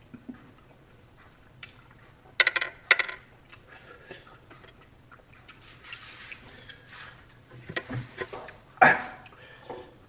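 Dishes and utensils being handled: several sharp clinks, the loudest about two and a half seconds in, around three seconds in and near the end, with scraping in between.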